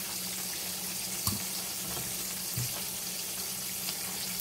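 Butter sizzling in a hot frying pan, a steady hiss, with a faint low hum underneath and one light click about a second in.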